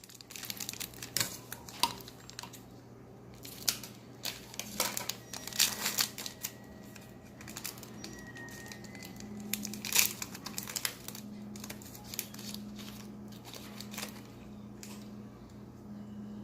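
Wrapper of a football trading-card pack being torn open and crinkled by hand: irregular crackles and rips that thin out over the last few seconds.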